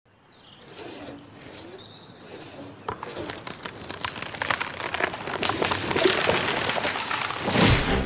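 A tree falling: wood and branches crackle and snap, building in loudness, and it lands with a heavy thud near the end.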